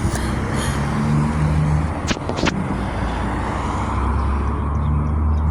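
Motor vehicle engine running, a steady low hum with road noise, with a couple of sharp clicks about two seconds in.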